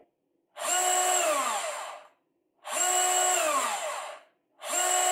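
DeWalt DCS374 cordless deep-cut bandsaw run at full speed in short trigger pulls: twice it runs steadily for about a second, then its pitch falls away over about half a second as the motor and blade coast down after the trigger is let go, and a third run starts near the end. The blade does not stop immediately on release.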